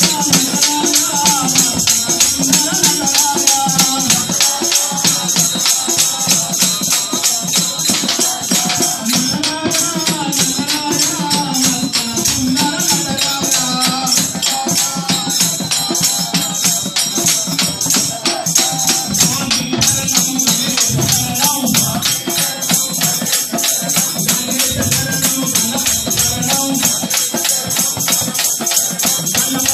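A devotional bhajan: a group of voices singing together, with jingling hand percussion keeping a fast, steady beat.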